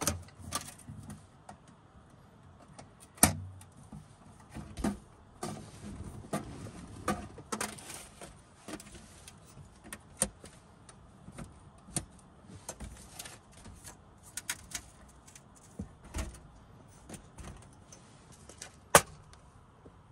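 Irregular knocks, clicks and light clatter of objects being handled and set down, with two sharper knocks about three seconds in and near the end.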